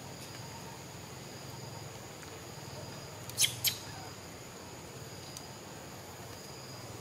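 Young macaque giving two short, high-pitched squeaks in quick succession about halfway through, over a steady high insect drone.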